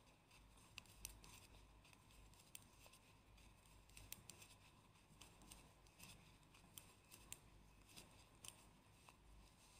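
Faint, irregular clicking of knitting needles tapping against each other as stitches are worked, over near-silent room tone.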